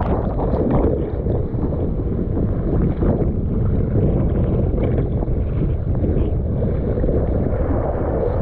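Strong wind on a GoPro Hero 8 microphone and choppy seawater splashing around it, with a few sharper splashes in the first second or so.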